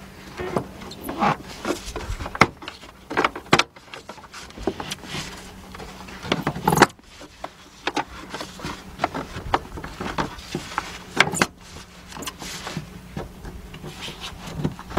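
Irregular plastic clicks, knocks and rustling as gloved hands twist a fuel pump module's plastic lock ring loose by hand and shift the plastic fuel lines aside, over a faint steady hum.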